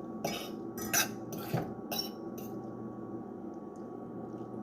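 Dishes and utensils clinking and clattering as food is handled and plated, several quick knocks in the first couple of seconds, then only a steady low room hum.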